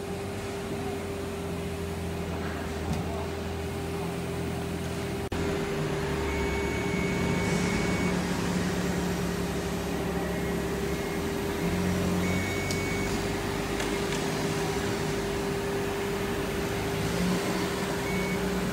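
Electric machinery running with a steady hum, one constant tone over a low rumble that shifts in strength, changing abruptly about five seconds in.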